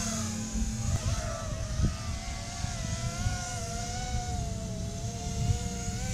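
5-inch FPV racing quadcopter's brushless motors and propellers whining in flight, the pitch wavering up and down as the throttle changes, over a low rumble.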